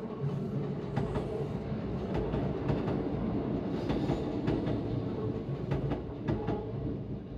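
An electric express train passing close by. Its cars run by with a steady rumble, broken by repeated sharp clacks as the wheels cross the rail joints.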